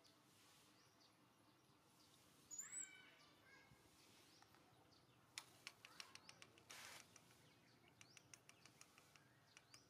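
Mostly near silence, with a short run of faint, high chirping calls about two and a half seconds in, then scattered light clicks and a brief rustle.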